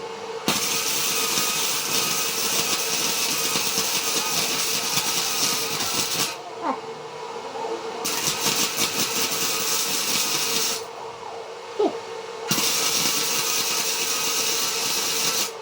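Arc welder laying three weld runs on the steel frame, a steady crackling hiss about six seconds, then three, then three, with short pauses between, over a steady hum.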